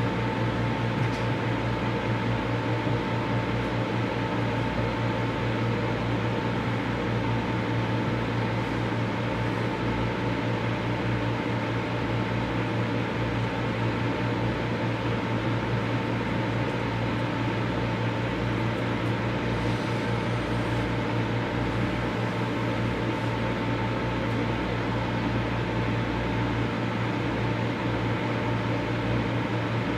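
Microwave oven running: a steady hum with a thin, unchanging tone over it.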